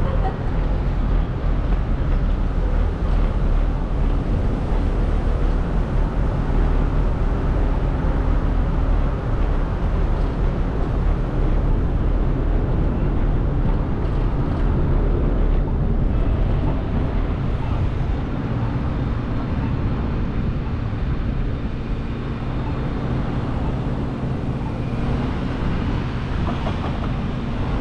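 Steady rumble of wind and road noise while riding a bicycle through city streets. A low steady hum joins about two-thirds of the way through.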